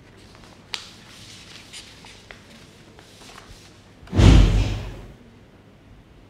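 A heavy thump about four seconds in, dying away over about a second, over faint scattered ticks and clicks.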